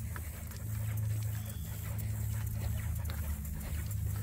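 Two curly-coated dogs panting as they walk on leash, with scattered light ticks, over a steady low hum.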